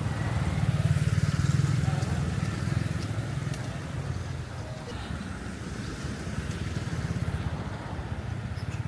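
A motorbike engine running close by, loudest in the first couple of seconds and then fading, over market voices.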